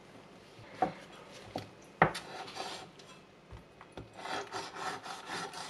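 A kitchen knife knocks sharply against a cutting board a few times. About four seconds in it starts sawing through an oxtail joint in quick strokes, about five a second, the blade scraping on the board.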